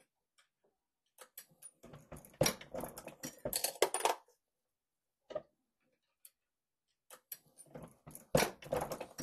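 RCBS single-stage reloading press depriming and resizing 300 AAC Blackout brass cases in a steel die: two bursts of metallic clicking and clinking as the ram is cycled and the cases are handled in the shell holder.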